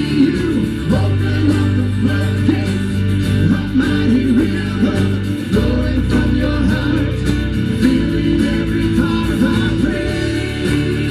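Live worship band playing and singing: several voices together over electric and acoustic guitars and drums.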